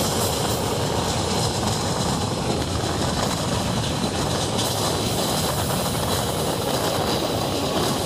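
Steady rushing noise of a moving train: wheels running on the rails mixed with wind, with no breaks or beat.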